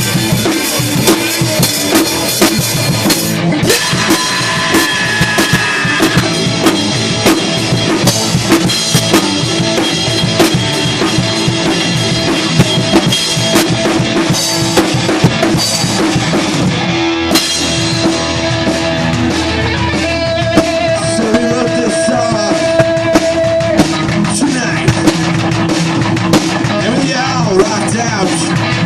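Punk rock band playing an instrumental passage with no singing: a drum kit keeps a steady beat under held guitar notes.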